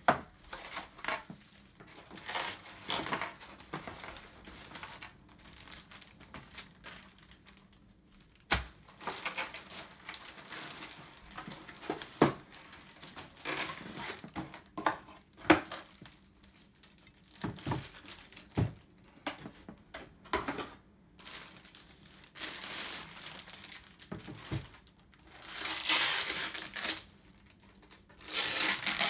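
Plastic wrapping crinkling and cardboard packaging rustling as a label printer is lifted out of its box and unwrapped, in irregular handling noises with a few sharp knocks. The crinkling gets louder near the end.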